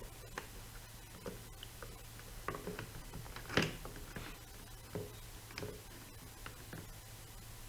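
Scattered light clicks and taps of hands handling a thin Lexan RC body shell and glue-repair tools, the sharpest tap about three and a half seconds in, over a faint steady hum.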